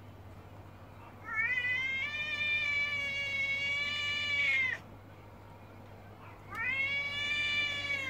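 Two long, drawn-out yowls from a stud tomcat squaring up to a rival, the first lasting about three and a half seconds and the second shorter near the end: a territorial threat caterwaul between two intact males.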